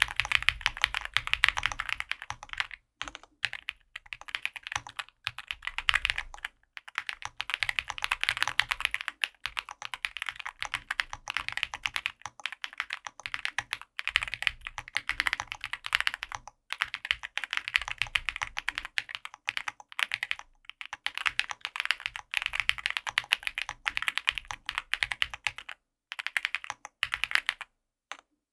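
Fast typing on an Owlab Spring Alice-layout mechanical keyboard with stock Owlab Tungsten switches, an aluminium plate, foam-filled case and PBT keycaps: dense runs of key clacks broken by several brief pauses.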